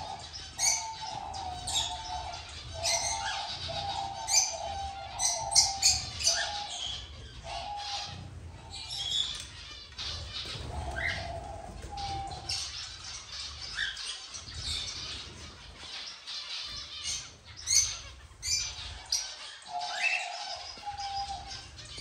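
Mixed flock of aviary birds chirping and calling, with many short high chirps throughout and, in stretches, a lower repeated call.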